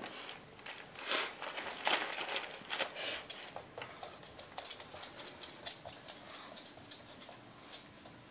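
Border terrier puppy's claws clicking and skittering on a wooden floor, with crinkly rustling from a fabric cat tunnel in the first few seconds as the puppy tugs a toy against it.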